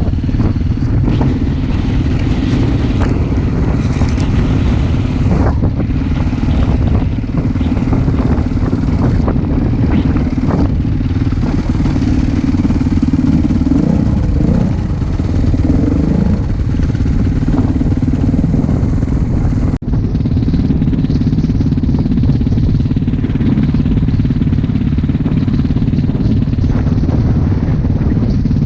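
Off-road vehicle engine running steadily under way, loud and continuous, with a brief break about twenty seconds in.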